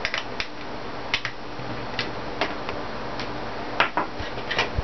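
Irregular small clicks and taps of hard plastic parts as the internals of an opened Nerf Longstrike dart blaster are pried loose with a screwdriver and lifted out of the shell. The clicks are about a dozen, the sharpest near the end.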